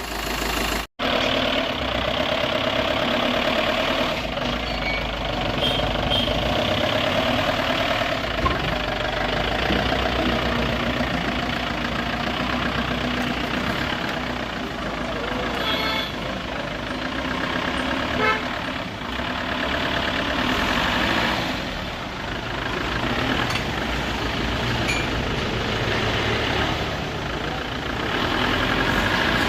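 Steady road traffic noise: vehicle engines and tyres running continuously.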